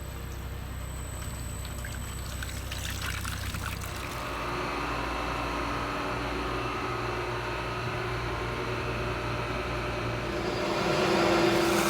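Liquid pouring and splashing steadily, joined about four seconds in by a steady mechanical hum that grows louder near the end.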